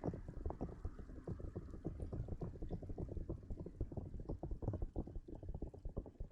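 Close, muffled scratching and rubbing right on an ASMR microphone: a rapid, irregular run of soft low taps and scrapes.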